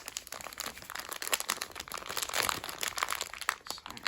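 Plastic packaging crinkling and crackling irregularly in the hands as Beyblade parts are taken out of it.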